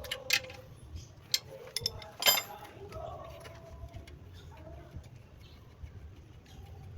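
A few sharp knocks and clinks, the loudest about two seconds in, over faint background voices and a low hum.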